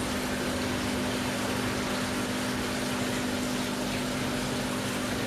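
Aquarium pump running with a steady hum over a constant wash of moving water.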